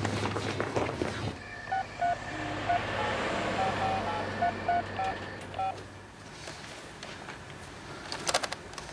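Touch-tone telephone being dialed: a quick, irregular run of about a dozen short two-note key tones over a low steady hum. A short stretch of noisy sound cuts off about a second in, just before the dialing.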